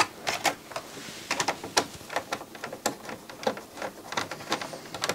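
A screwdriver and fingers working inside an opened CD player's chassis: irregular light clicks and ticks of tool and hands on plastic and metal parts.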